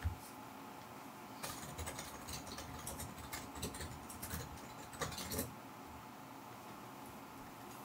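Brown paper bag crackling in a dense run of small clicks as a cat shifts inside it, lasting about four seconds and stopping before the end. A short low thump right at the start.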